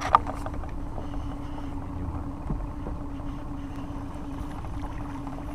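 Boat's outboard motor running steadily at low trolling speed, a constant hum under wind noise on the microphone, with a brief knock at the very start.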